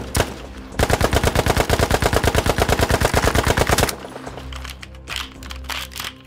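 A long burst of automatic submachine-gun fire, about eleven shots a second, starts about a second in and cuts off after about three seconds. A few lighter clicks follow near the end.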